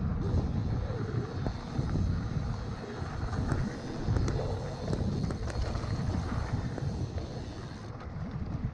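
A Mondraker Vantage mountain bike ridden fast down a dirt singletrack: wind rushes over the camera microphone, the tyres rumble over the trail, and the bike gives scattered sharp rattles and clicks. The high hiss drops away near the end.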